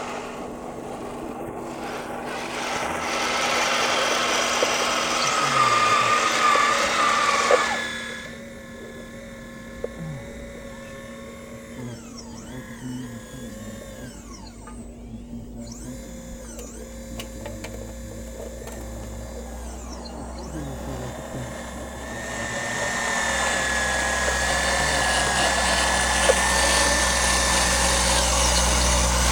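Electric-driven hydraulic pump of a radio-controlled CAT model excavator whining as the boom and bucket work, with a shifting pitch. It is loud at first, drops back to a quieter hum for a long middle stretch, and rises again to a steady high whine near the end.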